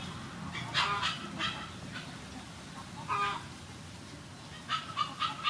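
Chickens clucking: a few short calls about a second in, another at about three seconds, then a quick run of clucks near the end.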